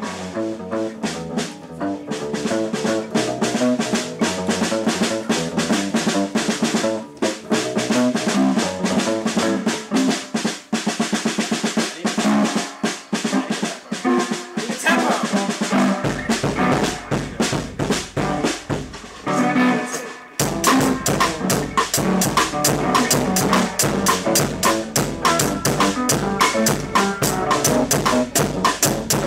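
Background music with a steady drum beat. A deep bass line comes in about halfway through, drops out briefly, then returns under the full beat.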